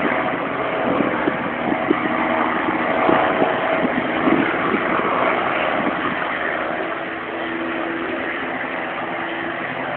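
A propeller aircraft's piston engine droning steadily at a distance, a little quieter from about seven seconds in.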